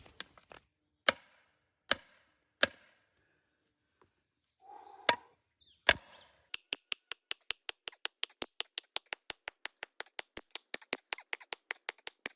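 A few sharp, separate knocks, then from about six seconds in a fast, even run of sharp clicks, about six a second, from work on the guy-wire anchor.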